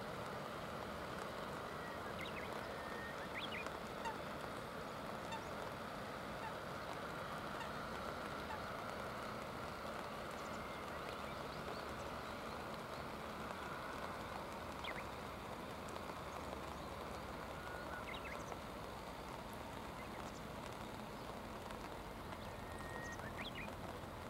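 Steady hiss of river water under rain, with a few short, faint bird calls scattered through it.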